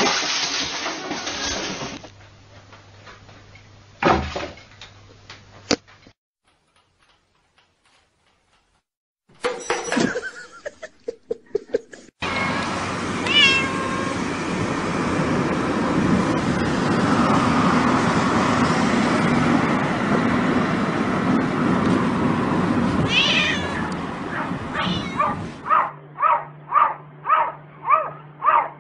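A cat meowing inside a moving car, over the steady road noise of the cabin. Near the end a cat at a window gives a quick run of short, repeated calls, about two a second.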